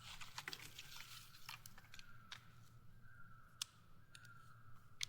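Quiet, scattered crackles and snaps, as of dry leaves and twigs being stepped on or handled, thickest in the first second. Behind them is a faint, high-pitched sound that repeats in short, slightly falling pieces.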